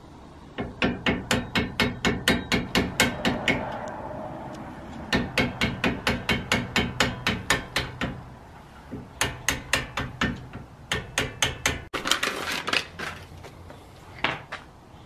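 Hammer blows struck in three quick runs of about four or five a second, with a few looser knocks and a rattle near the end.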